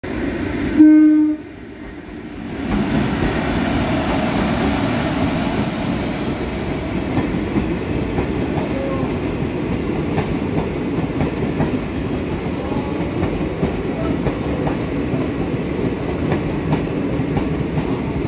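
A short train horn blast about a second in, the loudest sound, followed by a passenger train of Indian Railways coaches running past: a steady rumble of the coaches with the clickety-clack of wheels over rail joints.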